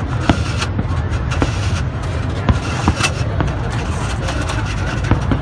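Dense street din of a crowd and motorbike traffic with some voices, punctuated by scattered sharp bangs, consistent with fireworks going off.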